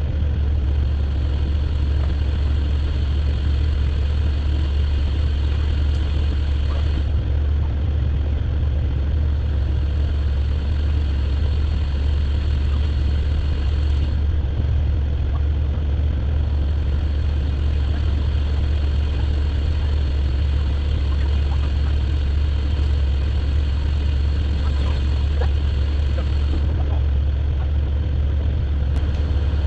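Off-road vehicle engine idling, a low, even drone that holds steady throughout.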